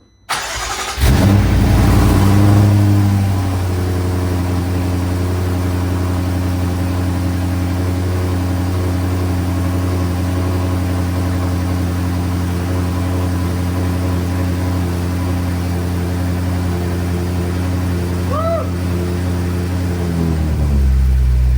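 A 2014 BMW M5 Competition's twin-turbo V8 starting for the first time after its rebuild: it cranks briefly, catches and flares, then settles within a few seconds into a smooth, steady fast idle, dropping to a slightly lower idle near the end.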